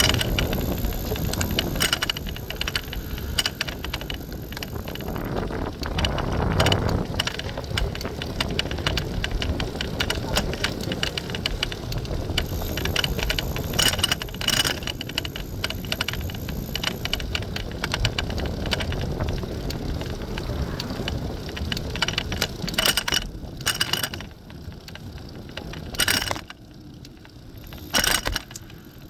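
Oslo Bysykkel city bike being ridden: a steady low rumble of riding with many small clicks and rattles from the bike. It grows quieter near the end, with a couple of sharp knocks.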